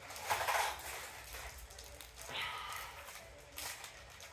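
Plastic wrapper of a trading-card pack crinkling and rustling as it is handled and pulled at to open it, with the loudest rustle about half a second in.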